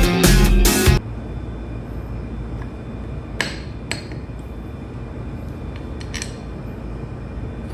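Rock music cuts off about a second in. Then come a few sharp metallic clinks of hand tools and parts against the metal of a hydraulic pump being worked on, over a steady low background noise.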